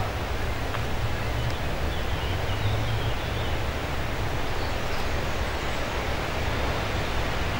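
Outdoor hush of a large crowd keeping a minute of silence: no voices, only a steady low rumble of wind on the microphone and leaves rustling in the trees.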